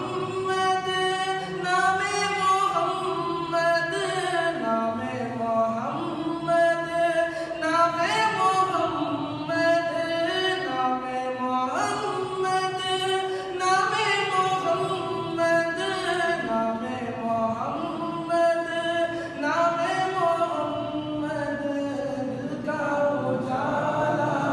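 Unaccompanied naat: a devotional Islamic poem sung a cappella in long, melismatic phrases that rise and fall, with no instruments.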